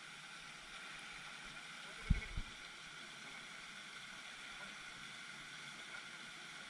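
Steady hiss of a pond's spray fountain splashing, with two short low thumps about two seconds in.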